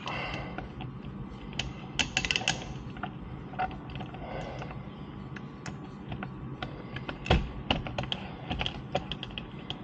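Irregular light clicks and taps of a screw and spacer being handled and fitted into a license plate bracket, with a quick run of clicks about two seconds in and a sharper knock a little past seven seconds.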